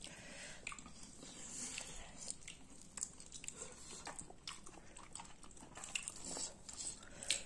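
Faint eating sounds: scattered small clicks and scrapes of steel spoons against steel plates and a bowl.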